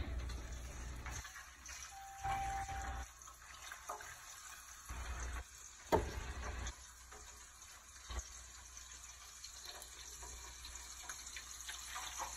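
Ham slices frying in hot oil, a faint steady sizzle, with a few handling knocks and one sharp click about six seconds in.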